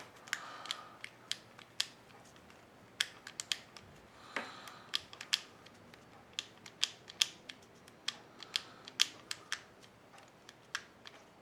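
Number dials of an Abus Bordo 6100 folding combination bike lock clicking through their detents as they are turned by hand, in irregular runs of sharp clicks, while the combination is felt out dial by dial. A brief rustle of handling about four seconds in.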